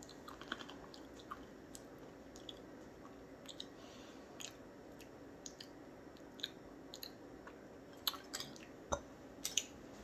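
Someone chewing a hard Chex Mix rye bread chip: faint, scattered crunching and crackling, with a few louder crunches near the end.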